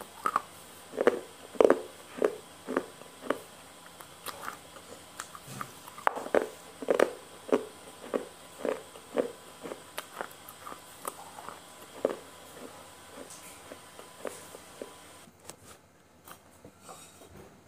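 Close-up chewing, wet mouth clicks and smacks about twice a second, picked up by a lavalier mic held at the lips. The chewing slows and fades about three quarters of the way through.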